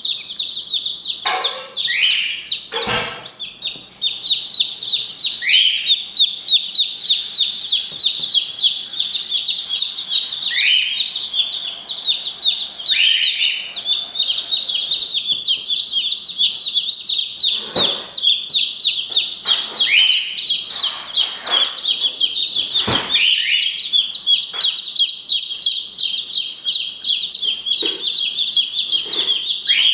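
A brood of newly hatched Light Brahma chicks peeping nonstop, many rapid high cheeps overlapping, with some louder calls that fall in pitch. A few short knocks come through, the sharpest about three seconds in and near the middle of the stretch.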